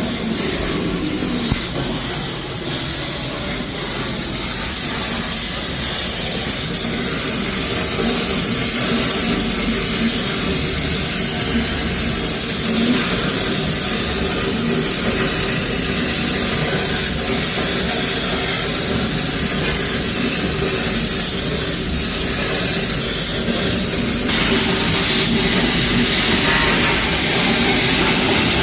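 Hypertherm Powermax 65 plasma torch on a CNC table cutting steel plate: a steady, loud hiss. Its tone changes abruptly about 24 seconds in.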